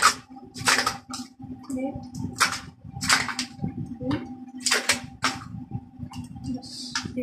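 Ice cubes being popped out of a plastic ice cube tray and dropped into a steel pot: a string of sharp cracks and clinks, about ten of them at uneven intervals.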